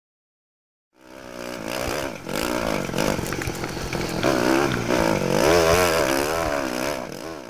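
Off-road racing engine revving, its pitch rising and falling again and again. It starts suddenly about a second in and grows louder toward the end.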